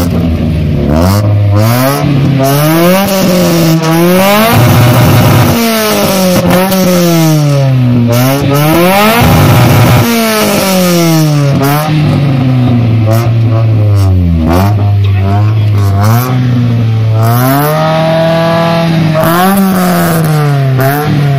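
Volkswagen car engine revved over and over through its exhaust: the pitch climbs and drops back every second or two, with one longer rev held high near the end.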